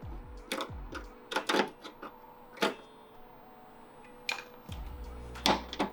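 Scattered sharp clicks and knocks of hand tools working a 10 mm fastener and clip on a car's plastic front trim, about seven separate strokes.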